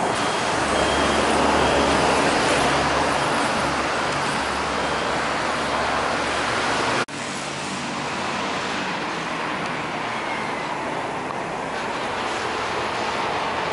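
Road traffic noise: a steady wash of passing vehicles over a low engine rumble. About halfway through it cuts off abruptly and gives way to a quieter, steady traffic hiss.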